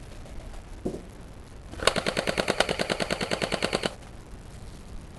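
An airsoft gun firing a full-auto burst of about two seconds, at roughly a dozen shots a second, starting about two seconds in.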